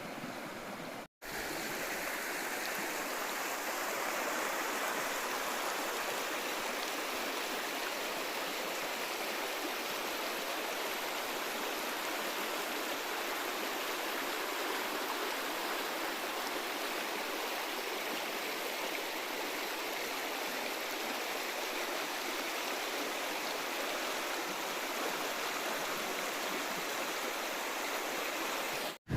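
A river running over stones: a steady rush of water, with a brief gap about a second in.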